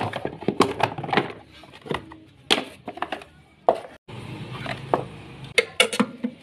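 Plastic body covers of a Yamaha Aerox 155 scooter being unclipped and pulled off by hand: a run of irregular clicks, knocks and plastic rattles.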